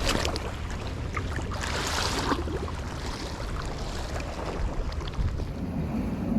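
Wind buffeting the microphone over the wash of high-tide river water at the bank, with a brief rushing hiss about two seconds in.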